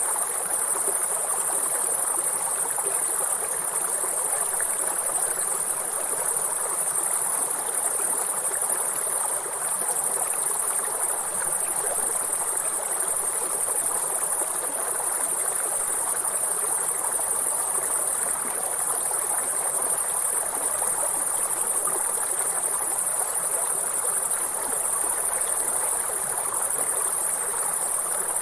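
River water flowing steadily over a stream bed, with a constant high-pitched chorus of insects, crickets by the sound of the tags, running over it without a break.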